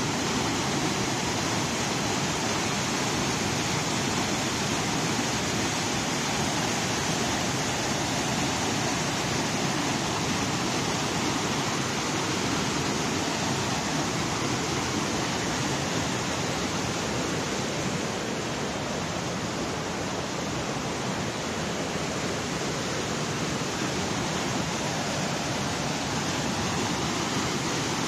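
Overflow water from a reservoir spillway rushing and splashing down small waterfalls over rock ledges, flowing with great force. A steady, even rush of whitewater.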